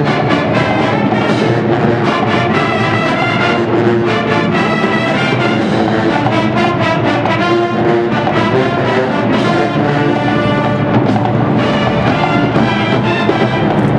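College marching band playing a tune at full volume: massed brass over a drumline keeping a steady beat, as the band marches into formation.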